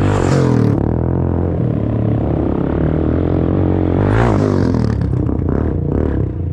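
An engine running steadily, with a brief sweep in pitch near the start and again about four seconds in.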